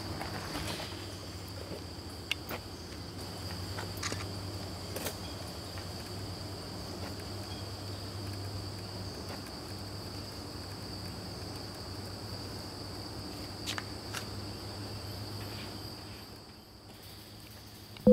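Steady, high-pitched drone of insects, with a few faint ticks scattered through it. The drone drops away about two seconds before the end.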